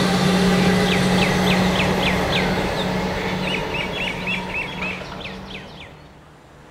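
Electric suburban train pulling away, its steady hum fading out over several seconds. A bird calls a run of quick chirps over it.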